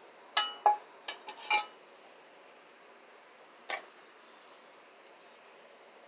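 Metal kitchen utensils clinking and clattering as they are handled and set down on a table. A quick run of four or five sharp, ringing clinks comes in the first couple of seconds, then a single knock near the middle.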